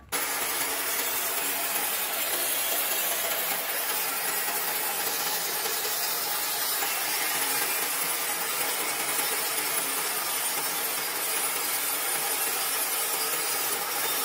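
Horizontal band sawmill driven by a 4 HP electric motor, running with its band blade sawing lengthwise through the clamped logs. The noise is steady and even, with no pauses.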